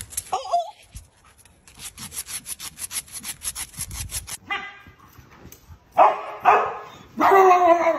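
A dog's claws scraping rapidly and rhythmically on concrete pavement for a few seconds. About six seconds in, a dog calls out loudly three times in quick succession, the last call longer.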